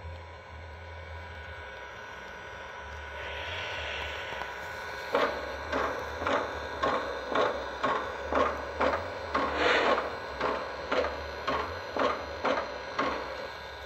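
Lionel Legacy O-gauge model of Strasburg #90, a Baldwin 2-10-0 steam locomotive, with its onboard sound system playing steam sounds over a low hum: a steady hiss at first, then from about five seconds in a slow, even chuff about twice a second.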